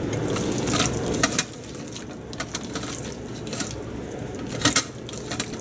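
Hands squishing and kneading raw chicken pieces in a bowl as they are mixed with soy sauce, giving short, irregular wet squelches. A steady rushing noise runs underneath and stops about a second and a half in.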